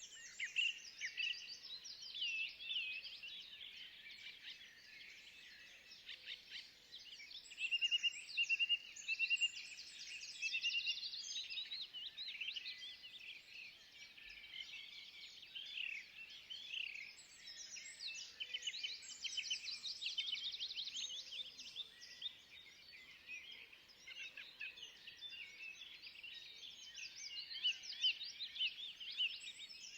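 Many small birds calling at once in a dense, overlapping chorus of chirps and fast trills, louder about a third of the way in and again near the end.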